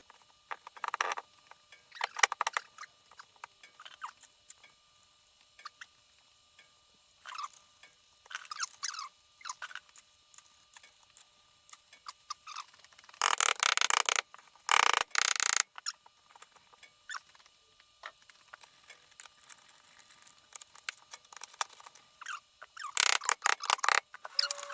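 Metal transmission parts being handled and fitted: scattered clicks, clinks and short scrapes, with three louder scraping or rattling bursts about a second long, two close together in the middle and one near the end.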